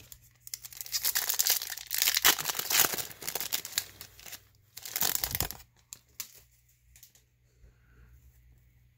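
Foil wrapper of a Topps Gallery baseball card pack crinkling and tearing as it is ripped open by hand, from about half a second in to about four seconds, with a second burst of crinkling about five seconds in. Then only soft rustling as the cards are handled.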